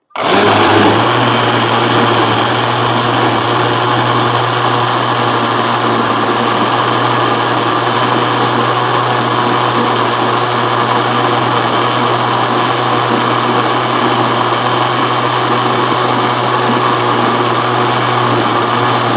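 Electric blender motor running steadily at speed, churning cream and water into butter. It switches on abruptly and keeps a constant pitch, a strong low hum under a high whine.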